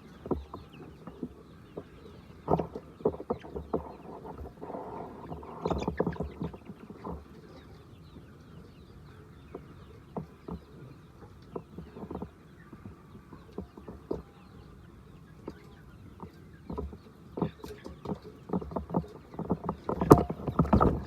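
Laying hens clucking in a poultry house, with many short sharp knocks and clatters scattered through. The calls and knocks are busiest near the start, about a quarter of the way in, and near the end.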